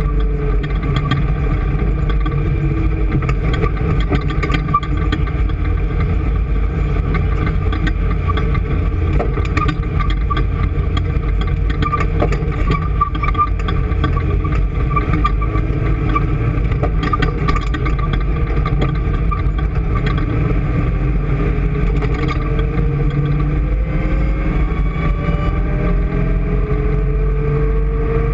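A motor vehicle's engine running steadily under way, with a constant low rumble; its note rises over the last few seconds as the engine speeds up.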